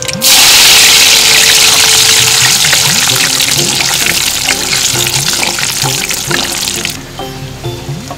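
Food dropped into hot oil in a wok, setting off a loud frying sizzle that starts suddenly, carries on steadily, and cuts off about seven seconds in.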